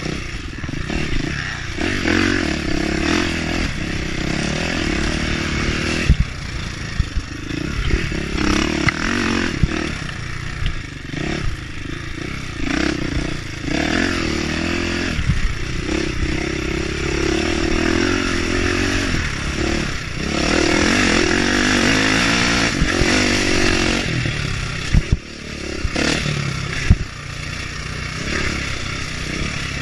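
Motocross bike engine revving up and down repeatedly as the throttle is opened and shut around a dirt track, with a few sharp knocks near the end.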